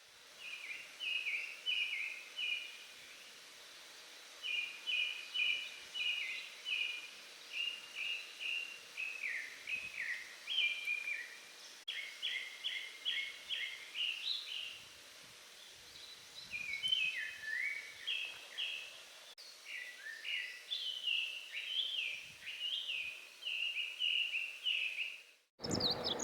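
Japanese thrush singing: a run of rapid, varied whistled phrases, with notes repeated in quick groups and a brief pause about two-thirds of the way through.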